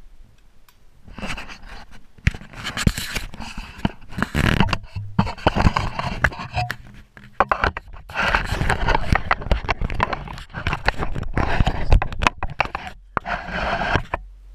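Bedding rustling and scraping close to the microphone in long bursts as someone shifts in bed and handles the camera, with many small knocks and clicks; it stops just at the end.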